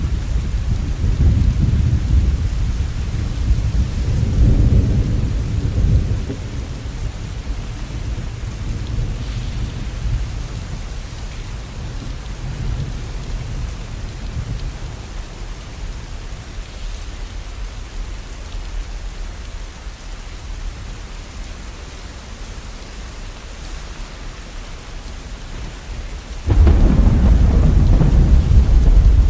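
Steady rain with thunder: a low rolling rumble that dies away over the first six seconds, a stretch of rain alone, then a new peal of thunder that breaks in suddenly near the end.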